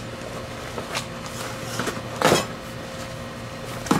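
Cardboard box of a mower blade being handled and opened: a few short scrapes and knocks, the loudest about two seconds in, over a low steady hum.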